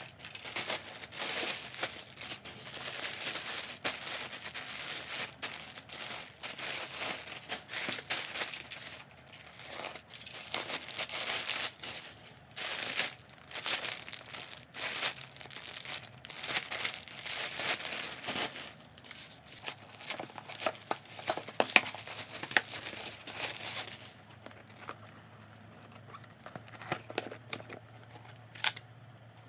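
Plastic parcel packaging crinkling and tearing as a haul is unboxed by hand, a busy run of rustles and rips. Near the end it dies down to a few faint clicks.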